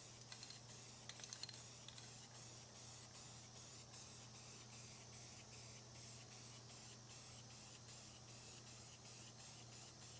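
Aerosol can of sandable primer hissing faintly in short repeated bursts, about two to three a second, as a light first dry coat is laid over a body-filler dent repair.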